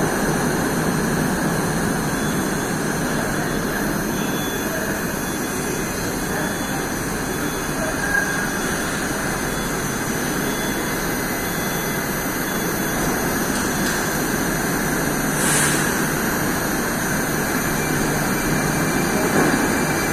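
Moscow Metro train standing at the platform: a steady hum from the train and station. A brief high hiss comes about three-quarters of the way in, and a few light knocks near the end as the doors shut.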